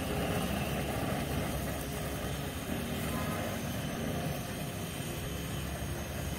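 Water boiling hard in an aluminium pot over a gas flame: steady bubbling with the even noise of the burner underneath.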